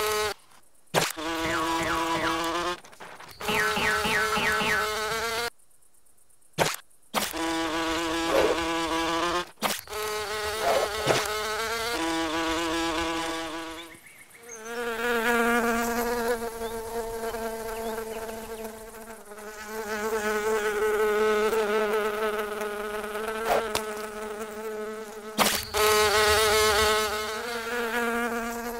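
Cartoon ladybugs' wings buzzing: stylized pitched buzzing drones that waver, start and stop, with a brief silent gap about six seconds in, then settle into a steadier continuous buzz.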